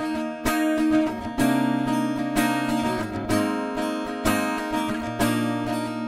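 Ovation Custom Legend 1869 acoustic-electric guitar strummed in ringing chords, re-struck about once a second. Its EQ is left flat, giving the guitar's plain natural tone.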